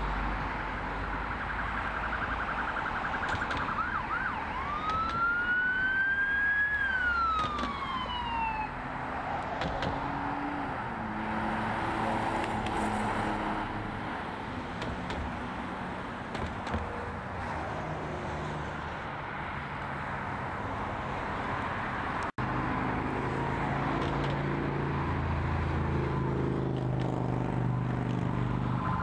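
Emergency vehicle siren over passing road traffic: a short rapid warble, then one long wail that rises and falls away. Near the end a vehicle engine grows louder as another siren starts up.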